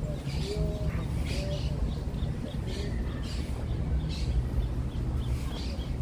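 Birds chirping in short, high calls about once a second, over a steady low rumble.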